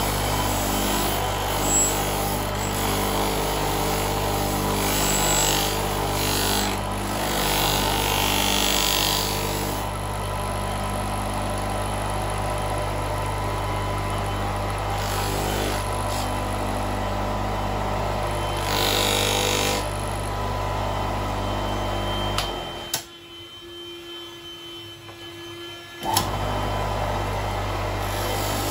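Electric polishing motor running with a steady hum, the anodized aluminium footrest bracket pressed against its wheel in stretches with a rubbing hiss as the metal is polished. The sound drops away suddenly for about three seconds near the end, then returns.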